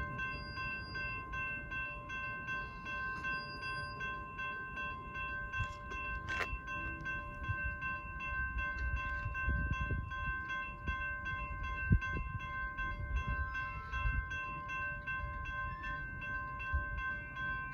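Railroad crossing bell ringing steadily while an empty intermodal well car of a freight train rolls slowly past, with a low rumble of wheels on rail and occasional clanks, the sharpest about twelve seconds in.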